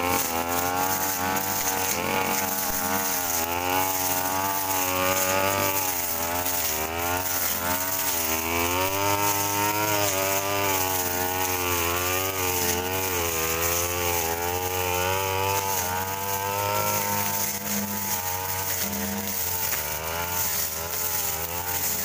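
Backpack brush cutter engine running under load, its pitch wavering up and down continually as the 41 cm blade is swung through tall grass.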